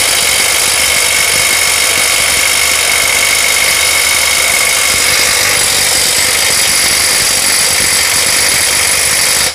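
Bull BL800NM 21 V cordless impact wrench hammering steadily on a nut tightened to 1020 Nm, well above its 800 Nm rating, trying to break it loose; the rapid hammer blows blur into one loud, even rattle with a steady high whine. It stops suddenly at the end.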